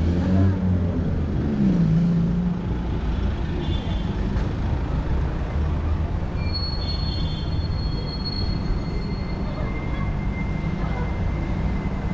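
Downtown street traffic: a heavy vehicle's engine rumbling close by, with a thin, high squeal starting about halfway through and running on to the end.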